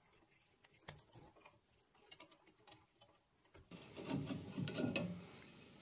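Faint clicks and taps of an aluminium fence rail being handled on a bandsaw's table edge, then, about two-thirds of the way in, a louder scraping rub as the rail slides off its mounting.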